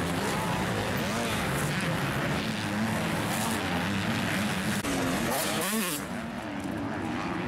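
Several motocross bike engines revving up and down on the track, their pitches overlapping and wavering. One bike rises and falls sharply about six seconds in.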